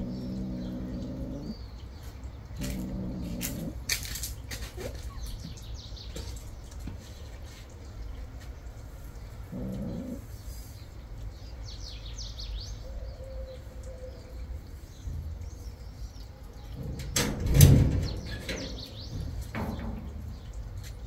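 A cat humming while it eats dry food: a low, steady-pitched hum in short spells of a second or two, at the start, about three seconds in and about ten seconds in. Small birds chirp faintly now and then, and a brief louder noise comes about seventeen seconds in.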